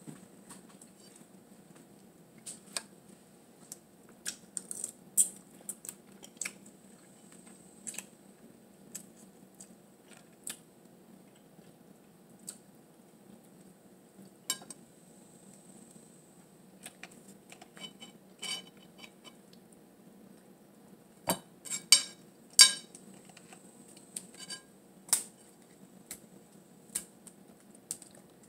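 Blue crab being picked apart by hand over a glass bowl, with a spoon clinking against the glass: scattered sharp clicks and cracks. A louder, quicker run of them comes a little past two-thirds of the way through.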